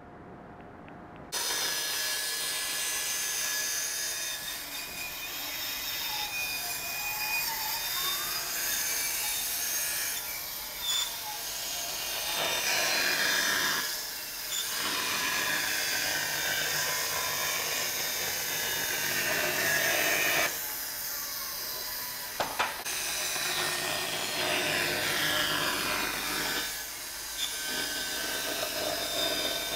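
Band saw running and cutting through a wooden board along a marked line. The sawing starts suddenly about a second in and dips briefly a few times between cuts.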